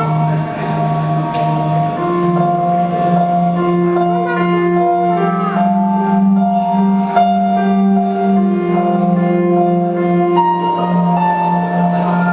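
Slow instrumental music: long held notes shifting from one to the next over a steady sustained low note.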